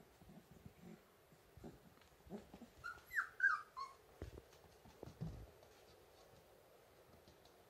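Three-week-old puppies play-wrestling: three short, high whimpering squeaks, each falling in pitch, about three seconds in, with soft scuffling thumps around them.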